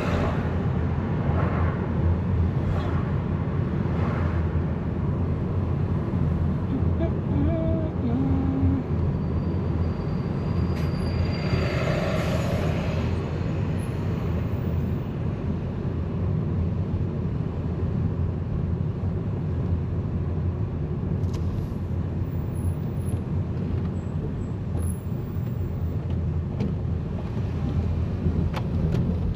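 Steady low rumble of a road vehicle in motion, with engine and road noise throughout. A louder passing swell comes about twelve seconds in.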